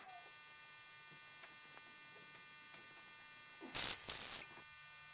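Steady faint electrical hum with a few faint ticks, then about three-quarters of the way through a loud burst of static lasting under a second: the noise of a video glitch in a security-camera recording.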